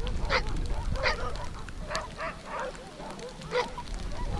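A team of sled dogs yelping and barking in short, separate calls, excited and eager to run.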